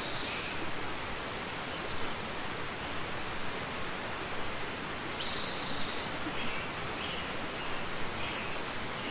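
Outdoor nature ambience: a steady, even hiss with brief high-pitched calls over it, the clearest one about five seconds in.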